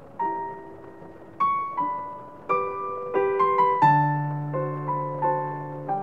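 Background piano music: a gentle melody of struck notes and chords, each fading after it is played, with a low chord held from about four seconds in.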